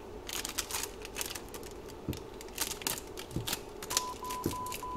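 Masking tape being peeled off a glass wine-glass foot coated in epoxy, giving irregular crackling clicks. Near the end, a run of short electronic beeps at one steady pitch.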